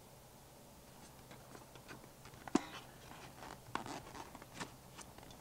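Cardboard packaging of a greenhouse vent-operator kit being handled as the parts are taken out: faint rustling with a few sharp clicks and knocks, the loudest about two and a half seconds in.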